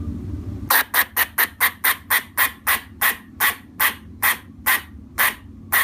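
A long series of short, sharp animal calls, starting under a second in at about five a second and slowing to about two a second.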